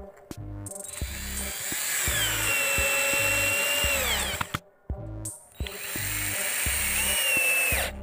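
Cheston cordless drill driving screws into wood in two runs, the first about three and a half seconds long and the second about two and a half: each time the motor whine holds steady, then falls in pitch as it slows under load with the screw going home. Background music with a steady beat plays underneath.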